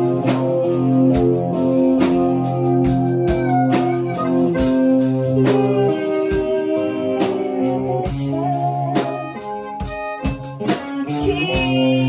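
Live band music: a harmonica played into a cupped handheld microphone holds reedy sustained notes over electric guitar and a steady drum beat. The playing thins out briefly about nine seconds in, then comes back in.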